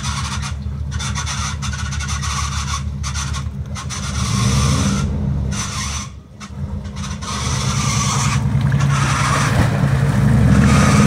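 Four-wheel-drive truck's engine running under load and revving in surges as it crawls through a deep mud hole, its tyres churning mud and water. The engine eases off briefly about six seconds in, then pulls harder near the end.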